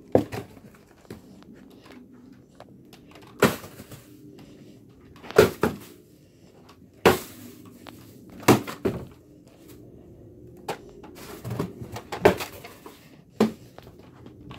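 About nine heavy thuds, a second or two apart, of an old projector being struck in an attempt to smash it; it does not break.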